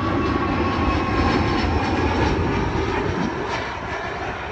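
Jet airliner's engines rumbling at takeoff power as it starts its takeoff roll, with a faint whine that slowly drops in pitch.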